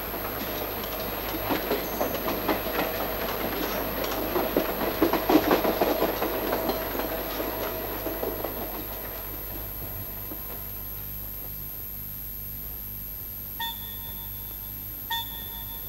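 Electric train running on the rails, its wheels clattering rhythmically over the rail joints with a steady rumble underneath. The clatter fades down about two-thirds of the way through. Near the end come two short pitched notes.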